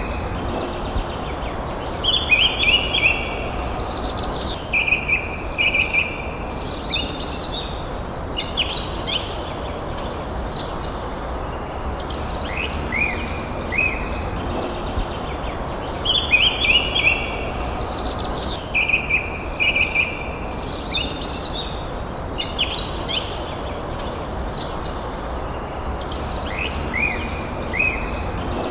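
Several forest birds calling and singing: short chirps, quick trills and falling whistled notes in clusters, over a steady low background noise. The same run of calls comes round again about every fourteen seconds.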